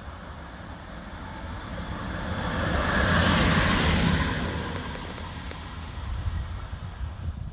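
A lone locomotive passing at speed, its rushing noise swelling to a peak about three to four seconds in and then fading away. Wind rumbles on the microphone throughout.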